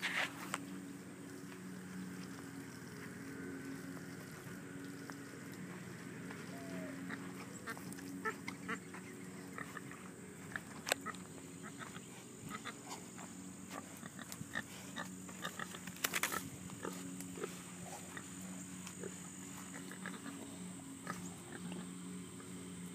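A boar grunting, with many short, sharp clicks and ticks from about a third of the way in and a steady low drone underneath.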